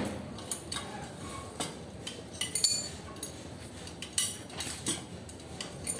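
Scattered light metallic clinks and knocks at an irregular pace, a few of them ringing briefly, from metal parts or tools being handled during air-conditioning unit installation work.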